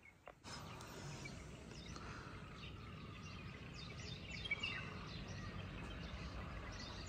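Small birds chirping and calling in quick, short notes over a steady low background hum, starting about half a second in and growing busier as it goes.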